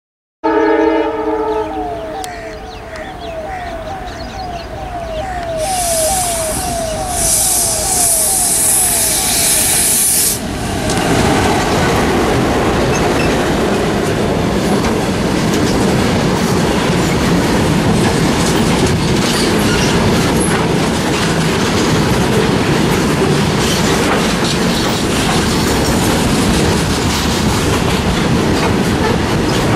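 Freight train passing, hauled by twin ALCO WDG-3A diesel locomotives. It opens with a horn and a tone that repeats about twice a second, then a loud hiss for about five seconds as the locomotives pass. After that the covered wagons roll by with a steady rumble and the rapid clicking of wheels over rail joints.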